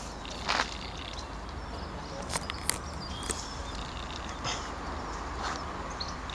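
Steady outdoor background hiss with a low rumble, broken by a few sharp clicks and brief high chirps.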